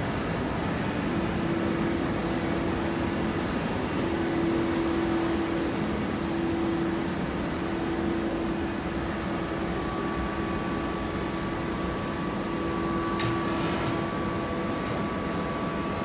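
Automatic horizontal hydraulic baler running: a steady machinery hum with a held whining tone, and a higher thin tone joining partway through. One brief click comes late on.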